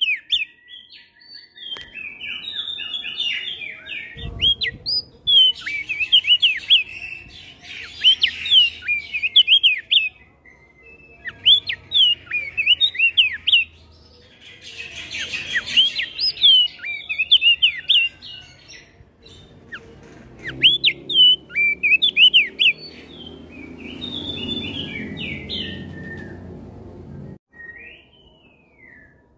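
Crested white-eye (opior jambul) singing in fast runs of sharp, sweeping chirps and whistles, broken by short pauses, with other songbirds answering it.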